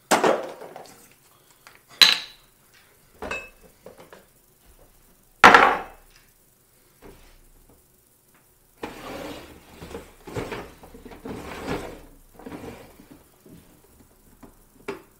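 Cups and small objects knocked and set down on a tiled kitchen counter: four sharp knocks and clinks in the first six seconds, one with a short bright ring. After that comes a stretch of softer, continuous scratchy handling noise lasting several seconds.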